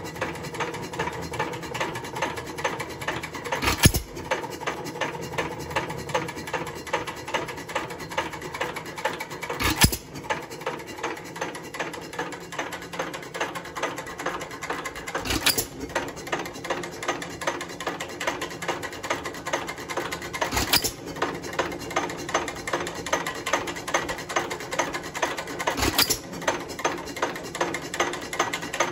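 Alamo 3 1/2 HP hit-and-miss engine running. Its valve gear makes a steady rapid clicking while it coasts, and it fires with a sharp bang five times, about every five to six seconds, as the governor lets it take a charge only when it slows.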